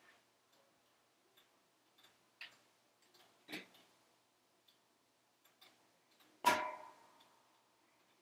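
Wood fire crackling inside a wood-burning stove with its glass door closed: scattered small ticks and pops, louder pops about two and a half and three and a half seconds in, and the loudest pop about six and a half seconds in, which rings briefly.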